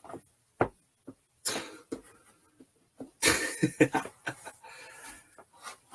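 A few sharp clicks and rustles as the fursuit head's magnetic eyebrows are handled and snapped into place. About three seconds in comes a short breathy vocal outburst, like a cough or chuckle, mixed with more handling noise.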